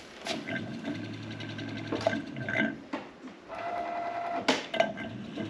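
A small electric motor runs with a steady whir in two spells, the second starting about three and a half seconds in, with a few knocks between them.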